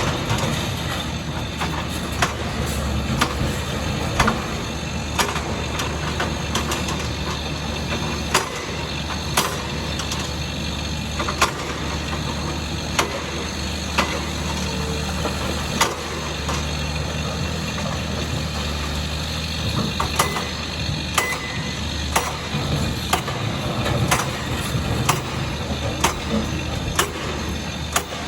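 Volvo EC460B excavator's diesel engine running steadily under load, with frequent sharp, irregular clacks of rock and gravel striking the steel bucket as it rakes aggregate together.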